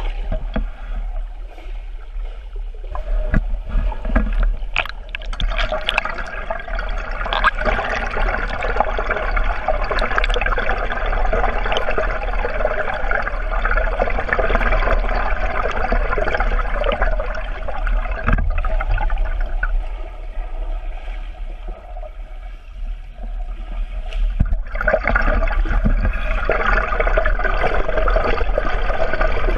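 Swimmers' kicks and arm strokes churning the pool water, heard underwater: a steady rushing, bubbling wash over a low hum, with a few knocks a few seconds in, dipping for a few seconds past the middle and swelling again near the end.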